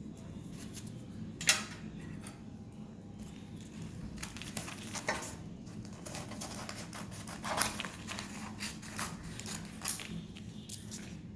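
Scissors snipping through paper in irregular cuts, the loudest snip about a second and a half in.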